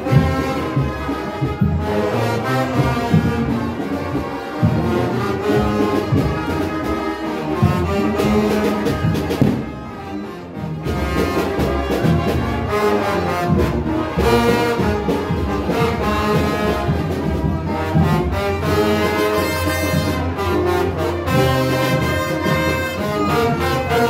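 Brass band playing a tune, with a short drop in volume about ten seconds in.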